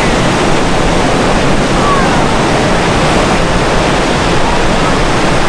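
Steady rushing jet noise from an A-10 Thunderbolt II's twin turbofan engines as it flies overhead.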